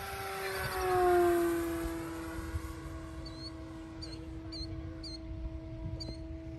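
Electric RC plane's brushless motor and propeller whining in flight, its pitch dropping as it passes close about a second in, then running steadily. A bird chirps repeatedly from about three seconds in.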